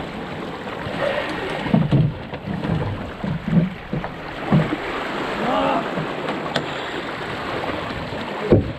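Water rushing and splashing along the hull of a National 18 sailing dinghy under way, with wind on the microphone. Several short, louder low slaps and knocks stand out, the strongest near the end.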